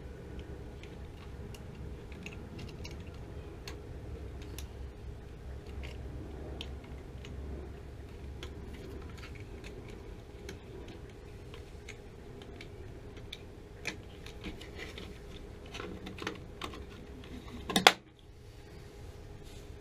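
Small clicks and taps of a water heater gas control valve being handled and fitted by hand, its plastic and metal parts knocking lightly, over a low steady hum. One sharp, much louder knock near the end.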